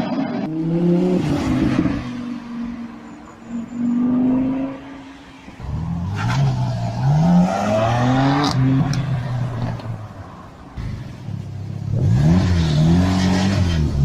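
Performance car engine revving and accelerating, its pitch climbing and falling back several times. It is quieter in the first half and louder from about six seconds in.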